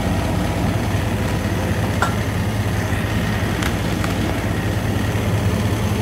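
Chevrolet's engine idling steadily with the air conditioning running. A few faint ticks are heard about two, three and a half and four seconds in.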